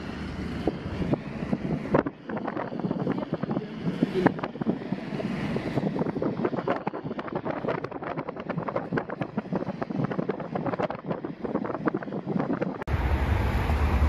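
A car driving, heard from inside the cabin: a dense, irregular crackle of tyre and road noise. Near the end it cuts abruptly to a steady low rumble.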